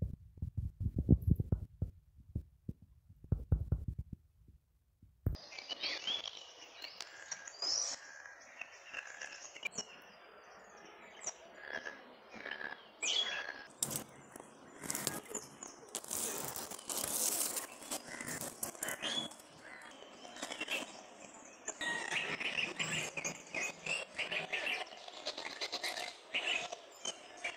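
Low, dull thumps for the first few seconds, then, after a sudden switch about five seconds in, many birds chirping and calling at once.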